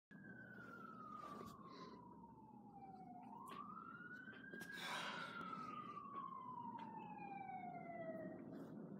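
A faint siren wailing: one slowly falling tone, a rise about three seconds in, then a long slow fall again. A few light clicks and a brief rustle about five seconds in.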